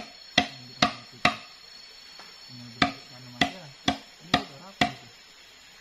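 A knife chopping sugar palm fronds in quick, sharp strokes, about two a second: four strokes, a pause of about a second and a half, then five more.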